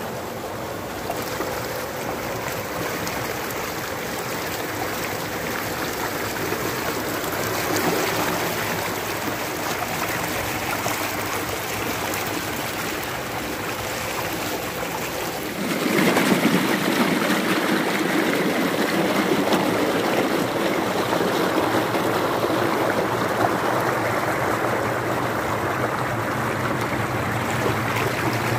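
Tubewell water gushing from its outlet pipe into a concrete tank and rushing down a concrete irrigation channel: a steady splashing rush that turns suddenly louder and fuller a little past halfway.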